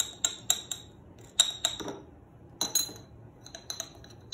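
Metal spoon stirring dry bicarb soda in glass jars, clinking against the glass in irregular bursts of sharp, ringing taps.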